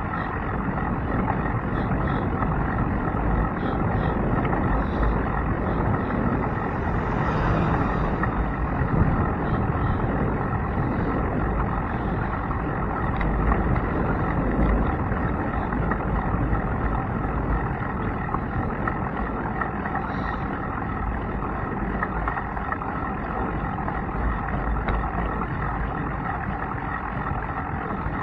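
Steady road rumble and wind noise picked up by a handlebar-mounted camera on a moving bicycle: tyres rolling on pavement and air rushing over the microphone.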